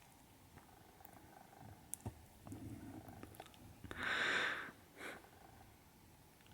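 Soft, close-up breathy yawn: a low murmur about two and a half seconds in, then a short breathy exhale around four seconds, with a few faint mouth clicks.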